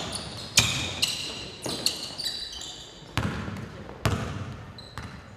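A basketball being dribbled on a hardwood gym floor: a handful of separate bounces about a second apart, each ringing briefly in the gym, with short high sneaker squeaks in between.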